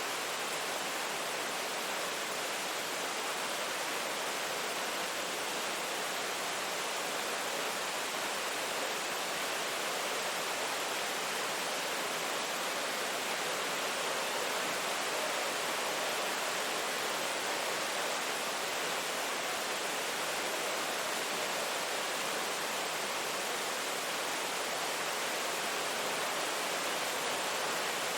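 Steady, even rain-sound ambience: a continuous hiss of falling rain with no distinct drops, thunder or changes.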